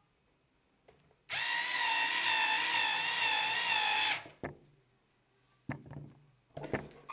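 Cordless electric screwdriver motor running with a steady whine for about three seconds, driving in a screw, then cutting off; a few short clicks follow near the end.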